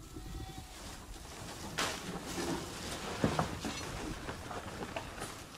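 A chicken tractor, a low pen with plywood sides and a corrugated tin roof, dragged by a rope over grass and dirt: a steady scraping and rattle, with a couple of knocks about two and three seconds in.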